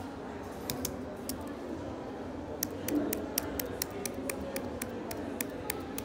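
Scissor-switch keys of an Apple Magic Keyboard with Touch ID clicking as they are typed on: a few scattered keystrokes, then steady typing at about four or five keys a second from a little before halfway.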